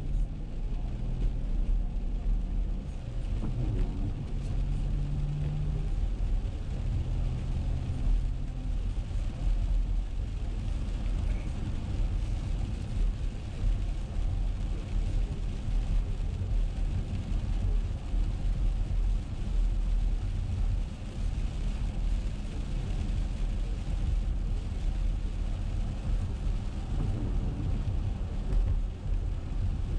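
Car driving on a wet road, heard from inside the cabin: a steady low rumble of engine and road noise with an even hiss of tyres on wet pavement.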